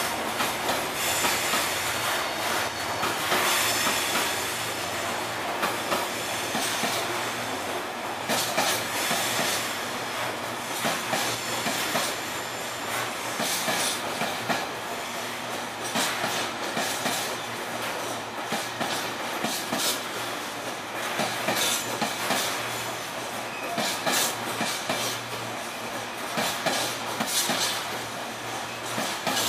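Freight train of ballast wagons rolling past at steady speed: continuous wheel-and-rail rumble with many irregular clicks and knocks as the wheelsets cross rail joints.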